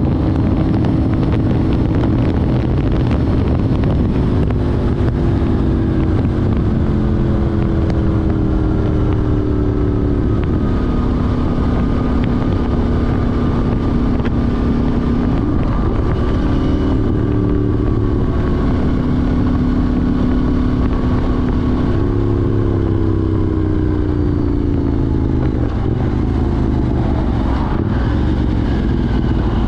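KTM 790 Duke's parallel-twin engine running through an Arrow Race-Tech exhaust with the catalyser removed, riding along. Engine speed rises and falls repeatedly, with several falling drops in pitch and a brief dip about halfway through.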